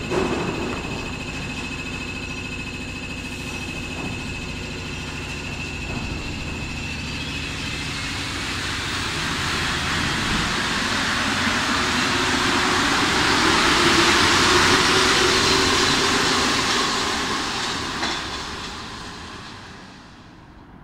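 A rubber-tyred MP73 Paris Métro train pulls out of the station. Its motors rise in pitch as it accelerates, and the running noise swells, peaks, then fades away as the train leaves.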